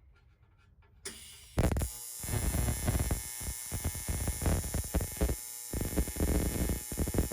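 AC TIG welding arc on aluminium, striking about a second and a half in and then buzzing steadily with an uneven crackle as the bead is laid.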